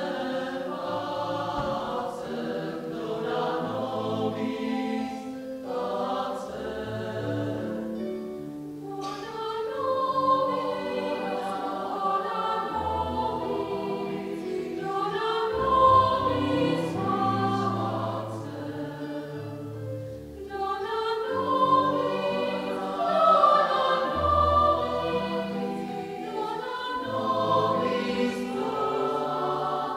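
Mixed choir of women's and men's voices singing in parts, with short breaks between phrases and louder swells in the second half.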